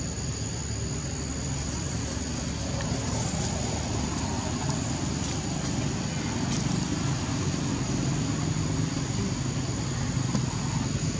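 Steady low rumble of distant engine noise, growing slightly louder, under a steady high-pitched insect drone.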